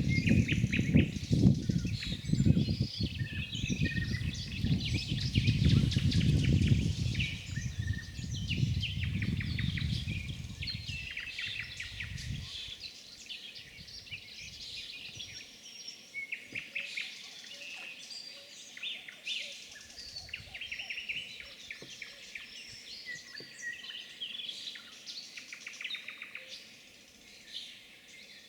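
Many songbirds chirping and calling at once, a dense chorus of short calls. A low rumble lies under the birdsong and fades out about twelve seconds in.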